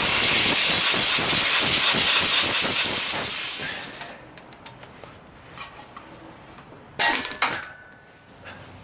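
A loud, steady hiss of escaping air that starts suddenly, lasts about three and a half seconds and fades out, then a short clatter of metal tool clinks about seven seconds in.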